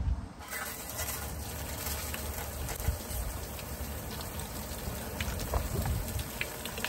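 Water from a garden hose spraying into the stainless steel tub of a YardBird chicken plucker, a steady hiss that starts about half a second in.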